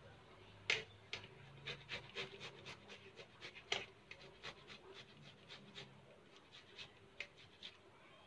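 Strawberries rubbed across a small plastic hand grater: short, faint scraping strokes, about three a second, growing sparser toward the end.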